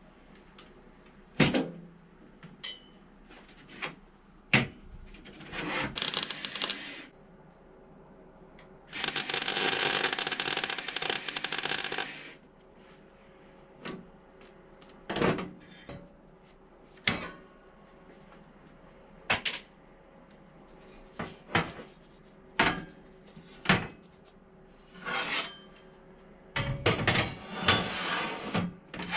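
Metal parts and tools being handled on a workbench: scattered sharp clicks and knocks, with a loud, harsh noise lasting about three seconds about nine seconds in.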